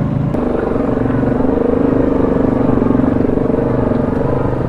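ATV engine running steadily under way. Its pitch steps up a little about a third of a second in, then holds.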